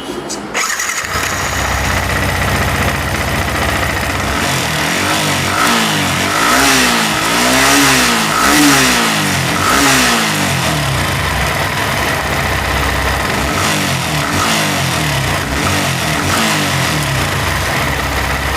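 Yamaha MT-15 BS6's 155 cc single-cylinder engine starting about a second in and idling, then revved in a series of quick throttle blips, each rising and falling in pitch, and settling back to idle. This is the stock BS6 sound, which the mechanic calls not very good.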